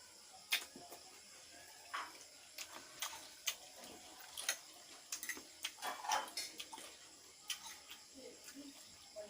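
Close-up eating sounds: wet chewing and mouth smacks with irregular sharp clicks, coming in quick clusters.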